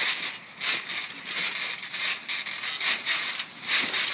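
Bubble wrap on a trampoline crinkling and crackling under repeated bounces, a burst about every second.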